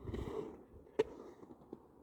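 Skateboard sounds: a brief scraping rush of the board, then a single sharp clack about a second in.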